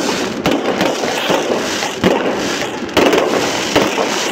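Firework shells bursting in a continuous dense crackle, with several louder bangs spread through it.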